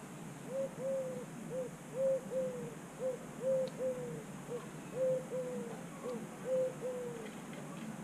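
A dove cooing: a run of short, mellow coos, a single note followed by a pair, repeated about every second and a half for some seven seconds.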